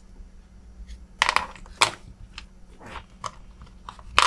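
Small metal screwdriver accessories clicking and knocking against a moulded plastic tool case as they are lifted out of their slots: several separate sharp clicks, the loudest near the end.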